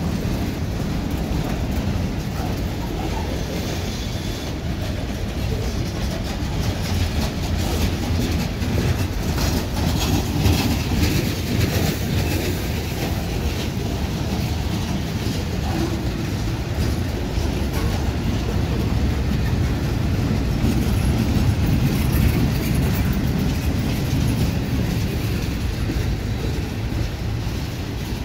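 Freight cars rolling past: steady wheel-on-rail rumble, with the clickety-clack of wheels crossing rail joints.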